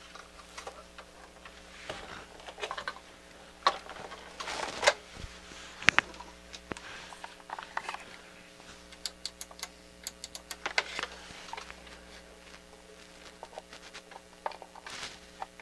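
Handling noises from the open metal chassis of a Denon DCD-695 CD player being turned round and shifted on a workbench: scattered knocks and clicks, with a quick run of small ticks about nine to ten seconds in. A faint steady hum sits underneath.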